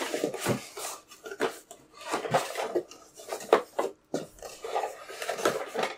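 Someone rummaging through plastic action figures: irregular rubbing and scraping with light clattering knocks.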